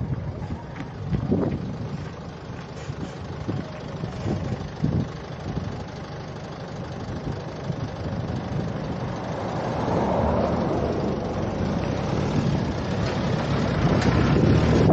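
Engine and road noise of a moving vehicle, steady and growing louder in the last few seconds.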